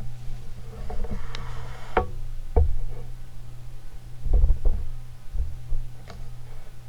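Homestead Whisperfan I ceiling fan motor running with a steady low hum, broken by several sharp knocks, a close pair about halfway through the loudest.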